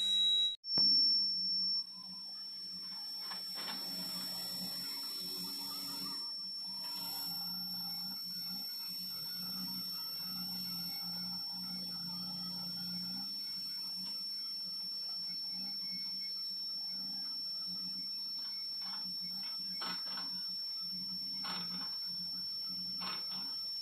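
JCB backhoe loader's diesel engine running at a distance as it digs soil: a steady low drone under a constant high-pitched whine, with a few faint knocks near the end. A louder sound cuts off abruptly about two seconds in.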